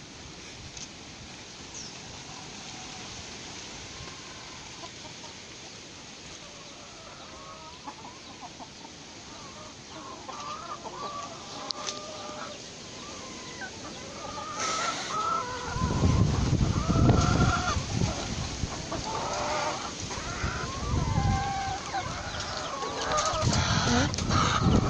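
Backyard chickens clucking, starting about ten seconds in and growing busier toward the end. Over the second half a heavy low rumbling noise comes and goes and is the loudest sound.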